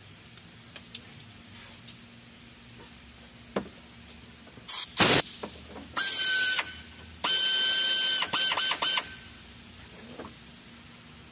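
Light tool clicks and a clank, then a handheld power tool running in two trigger bursts with a steady whine, the second ending in several quick blips. The tool is loosening bolts while the engine is being taken apart.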